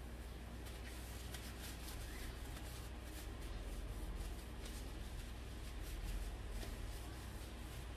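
Paper towel rubbing and rustling against the inside of a metal saucepan in a run of short wiping strokes, over a steady low hum.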